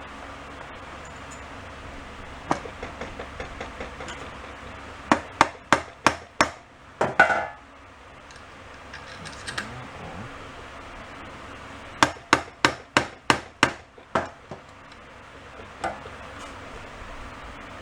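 Sharp clicks and taps from small engine hardware and hand tools being handled while loose screws and bolts are sorted and fitted. There is a cluster of clicks about five to six seconds in, a short rattle around seven seconds, and a run of about eight evenly spaced clicks between twelve and fourteen seconds.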